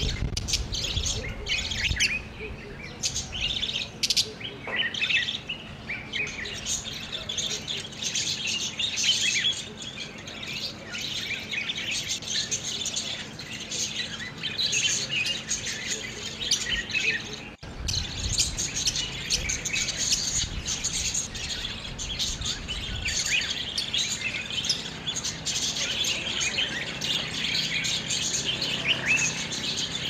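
A flock of budgerigars chirping and chattering continuously, many short high calls overlapping.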